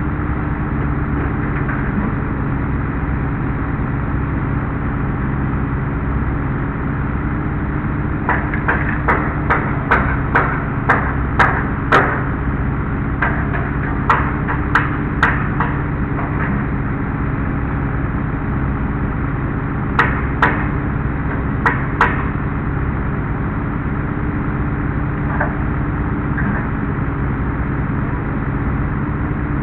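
Engine of a tracked Skyjack scissor lift running steadily, the machine standing still. Over it come sharp knocks, about two a second, for some eight seconds from about a quarter of the way in, then three more about two-thirds of the way in.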